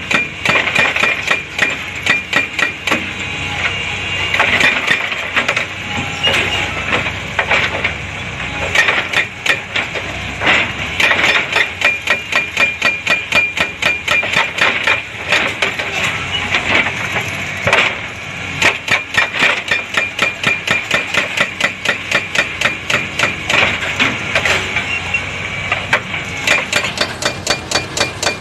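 Hydraulic breaker on an excavator boom hammering rock: rapid, repeated blows, several a second, with a ringing metallic note. The blows come in runs that break off briefly and start again.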